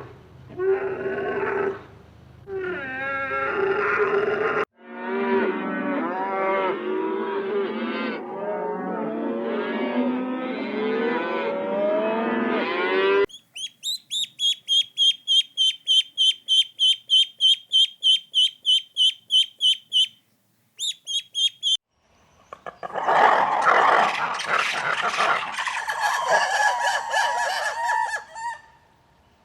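A run of farm animal calls in separate sections. It opens with a few pitched calls, then a dense chorus of many overlapping calls. Next comes a high, rapid pulsing call repeating about three times a second, and after a short gap a noisy mixed chorus of calls.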